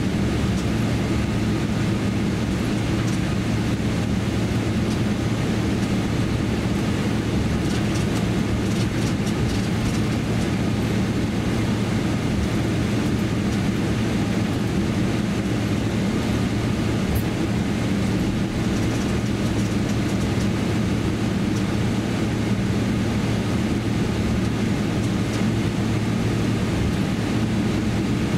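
Cabin noise of a Boeing 777-300ER airliner taxiing: a steady low hum and rush from the engines at taxi power and the cabin air, with a few faint rattles about a third of the way in.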